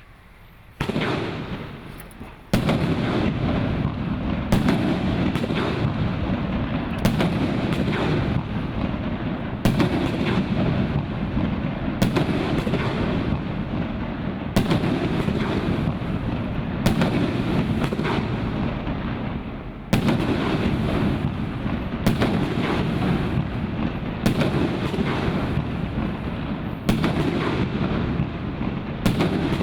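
A 2-inch, 25-shot firework cake firing. The first shot comes about a second in, and after that a sharp report sounds every two to three seconds. Between the shots there is a steady rumble and crackle from the breaks.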